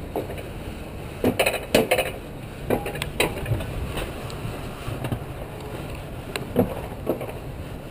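Alpine coaster sled rolling down its metal rail track: a steady low rumble broken by sharp clacks and knocks, several in quick succession in the first few seconds and a few more near the end, with wind on the microphone.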